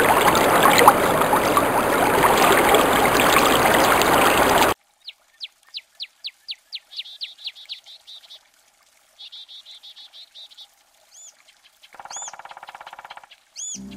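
Rushing, splashing water that cuts off abruptly about five seconds in. Then birds calling: a quick run of falling chirps, a short trill, and a few sharp chirps near the end, with a buzzy rattle under them.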